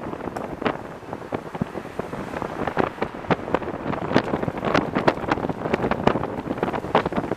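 Wind buffeting the camcorder microphone, with irregular crunching and rustling of footsteps through dry grass, several steps a second.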